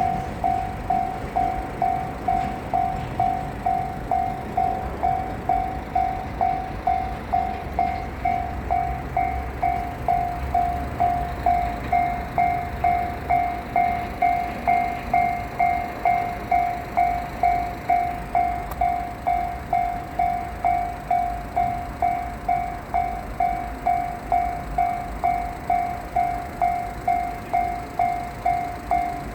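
Japanese railway level-crossing alarm ringing steadily, about one and a half to two dings a second, all the same pitch. Beneath it the low rumble of a passing freight train fades out about ten seconds in.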